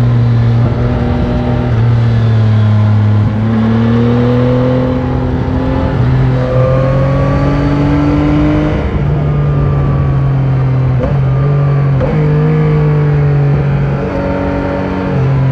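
Stock Yamaha Tracer 9 GT's 890 cc CP3 inline-three engine running on the move, its pitch gliding up and shifting in steps as the throttle changes, with wind noise behind it.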